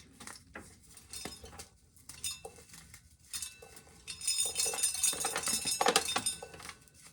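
Dry corn kernels being shelled and falling into a container: scattered small clicks and clinks, growing into a dense run of them a little past the middle before thinning out.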